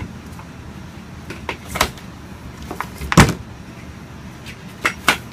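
Office chair parts knocking together as the leg pieces are handled and fitted: a few scattered sharp knocks, one much louder about three seconds in and two quick ones near the end.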